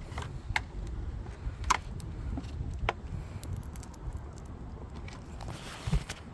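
Sharp clicks and knocks of the plastic roof trim covers being handled and popped off the car's roof, a few at about a second apart and a heavier knock near the end, over a steady low rumble.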